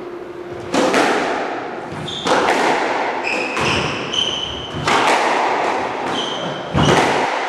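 Squash rally: the ball cracks off the racquets and court walls about every one to two seconds, each hit ringing in the enclosed court, with short high squeaks of players' shoes on the wooden floor between hits.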